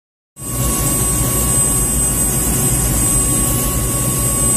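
Bell 206B3 JetRanger helicopter running on the ground, heard from inside the cockpit. Its Allison 250 turboshaft turbine gives a steady high whine over the low, even beat of the turning main rotor. The sound starts abruptly about half a second in.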